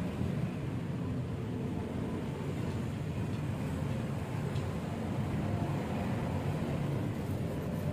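Minerva R150 X-Road motorcycle engine running steadily, with the rough engine noise (suara mesin kasar) that is being diagnosed.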